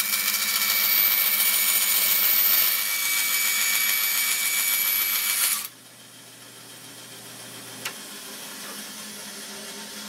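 Band saw cutting through plexiglass: a loud, hissy, high-pitched cutting noise with a steady whine. About five and a half seconds in the cutting noise stops abruptly, leaving a low motor hum that ends with a click about two seconds later.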